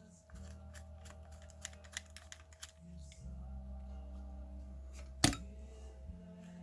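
Small clicks and taps of a cassette Walkman being handled during repair: a quick run of clicks in the first three seconds and one sharp, louder click about five seconds in, over a steady low hum.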